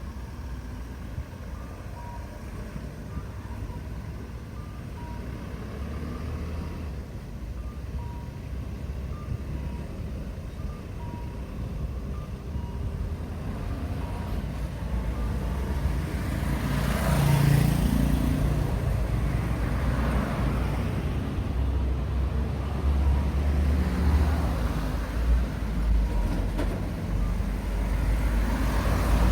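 Road traffic: faint, evenly repeated beeps over a quiet rumble, then a vehicle passes close by about halfway through, and more engine and tyre noise follows near the end.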